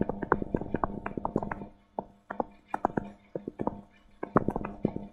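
Stylus tapping and clicking against a tablet screen while numbers are handwritten, an irregular run of small ticks, the sharpest about at the start, over a faint steady hum.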